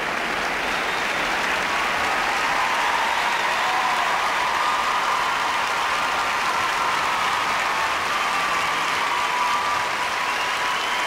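Large arena crowd applauding steadily for figure skaters at the end of their program.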